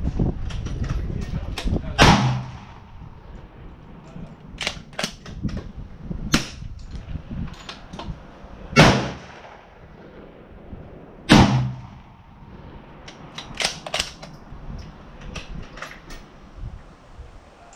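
Three loud rifle shots from a Southern Cross Small Arms Taipan Light pump-action .223, about two, nine and eleven and a half seconds in, each a sharp crack that rings out afterward. Fainter cracks and clacks come between them.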